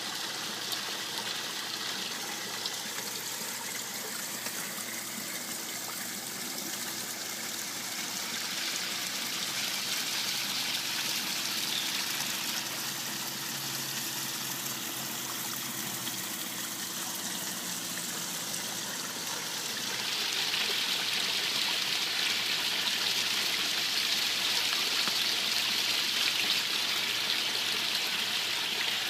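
Water spilling down a koi pond waterfall and splashing steadily, growing louder about two-thirds of the way through.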